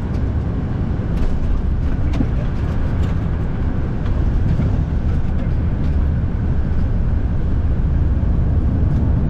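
Steady low rumble inside a small jet's cockpit as it rolls along the runway after touchdown: engine, airflow and wheel noise, with a few faint ticks.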